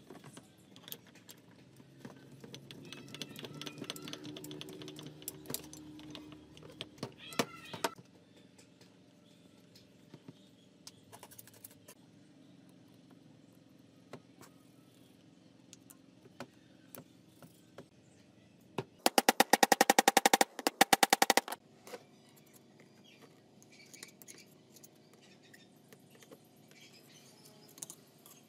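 Clinks and taps of metal parts and hand tools on a workbench as an angle grinder's gear housing is put back together. A little past the middle, a loud, fast run of even clicks lasts about two and a half seconds.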